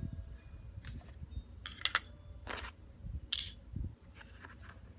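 Small metal screws and tools being handled during disassembly of a 50-round drum magazine: several sharp clicks and light clinks at uneven intervals, some with a brief metallic ring.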